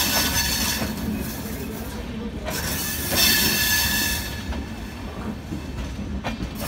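LHB passenger coaches rolling slowly past on the track with a steady low rumble. A high metallic wheel squeal rises over it twice: once around the start and again about three seconds in.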